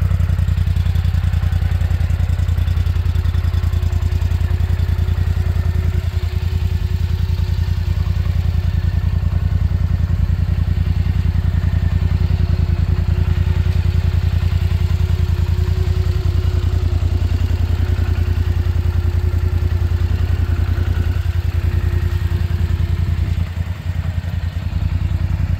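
Polaris Sportsman 850 ATV's 850 cc parallel-twin engine idling steadily, with a brief drop in level near the end.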